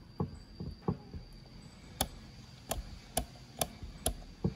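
A hex key and small metal parts clicking and knocking against a chainsaw housing as a fitting is screwed in by hand. A few soft knocks come first, then five sharp clicks about half a second apart, and a last knock near the end.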